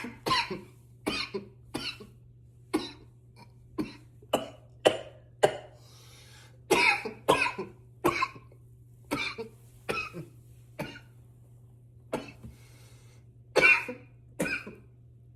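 A man coughing intensely in a long run of short, sharp coughs, roughly one or two a second, with a brief pause a little past the middle.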